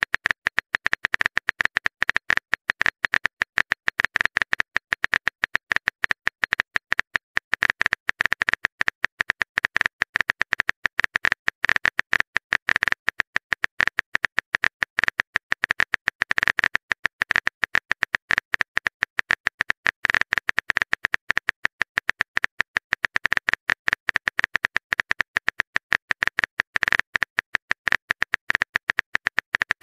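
Keyboard typing sound effect: a rapid, unbroken stream of sharp clicks, many per second, as a text message is typed out letter by letter.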